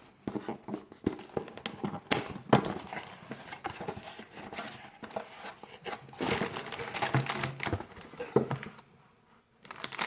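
Toy packaging being opened by hand: crinkling plastic and rustling cardboard with scattered small clicks and knocks, which stop briefly near the end.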